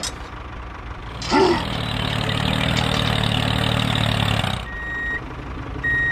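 Dubbed heavy-truck engine sound laid over a toy tractor: a low running rumble that swells into a louder engine run for about three seconds, then two short high beeps like a reversing alarm.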